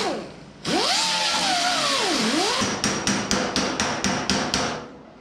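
A die grinder with a small sanding disc grinding the sheet steel of a car body, its whine wavering and sinking in pitch as it is pressed into the metal. It stops briefly just after the start, then spins back up. Past the halfway point it gives way to about ten quick metallic taps of a body hammer on the steel panel, around five a second.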